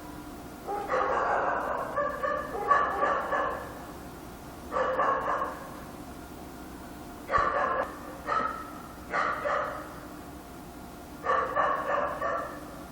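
A dog barking in short runs of a few barks, with pauses of one to two seconds between runs. A faint steady hum lies underneath.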